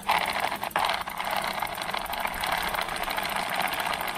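Dirty mountain-bike chain being run through a clamp-on plastic chain-cleaner box, its internal brushes spinning as the chain goes round: a steady, fast mechanical rattling whir.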